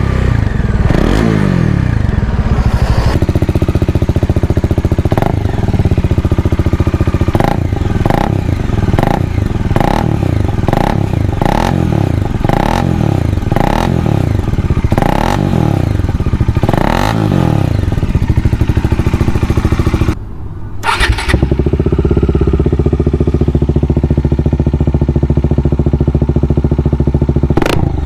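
Bajaj Dominar 400's single-cylinder engine heard at its exhaust, blipped up and down about a dozen times in quick succession. After a short break about 20 seconds in, it idles steadily.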